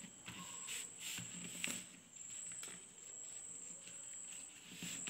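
A sheet of paper rustling and scraping on a tabletop as hands fold and press a crease, in a few short scratchy bursts, over a steady high-pitched whine.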